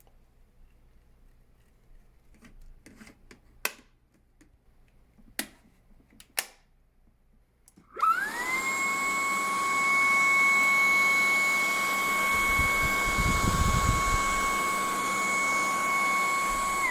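A few sharp clicks, then the Dreametech T30 cordless stick vacuum is switched on about halfway through. Its high-speed motor spins up to a steady high whine with a rushing suction hiss. A low rumble comes in briefly, and the motor winds down as it is switched off at the end.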